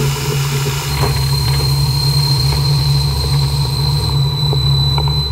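CNC machining centre drilling 316L stainless steel with a Kennametal KenTip modular carbide drill under coolant spray: a steady machine drone, with a deeper hum and a high, steady whine setting in about a second in.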